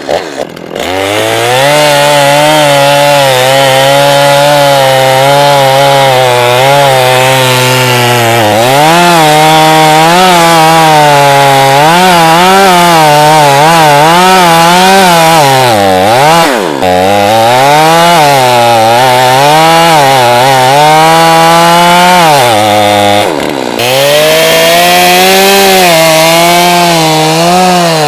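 Chainsaw running at high revs while cutting wood, its pitch sagging and recovering as the chain loads up in the cut, with two brief drops in revs, one about halfway through and one near the end.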